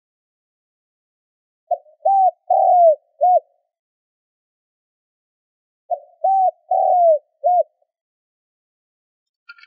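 Spotted dove cooing: two calls about four seconds apart. Each call is a quick short note followed by three arched coos, the middle coo the longest.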